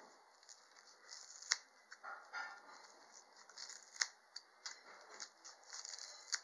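Faint handling noise of fresh calendula and clover flowers being set on a plate: light rustling of petals and leaves, with a few sharp clicks.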